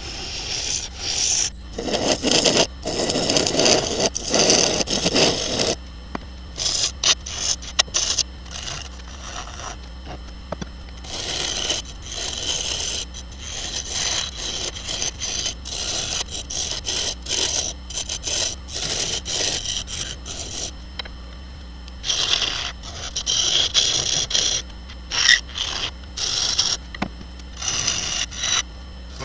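Bowl gouge cutting a spinning maple burl bowl on a wood lathe: repeated scraping passes of the tool, each a second or two long, over the steady hum of the lathe. The heaviest cut comes about two to six seconds in.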